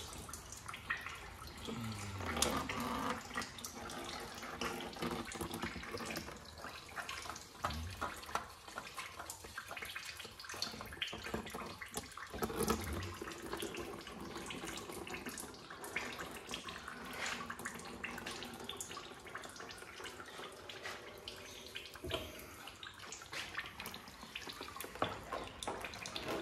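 Used engine oil trickling and splashing into a drain pan from the loosened oil filter of a 3.8-litre V6, with scattered small clicks and knocks as the filter is handled and spun off.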